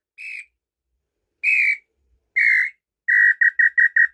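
Hand-made braúna-wood tinamou call (pio) being blown. It gives a short whistled note, then two longer notes, then, near the end, a quick run of about nine short notes at roughly six a second. The call is built with its ball running loose so that saliva does not spoil its tone.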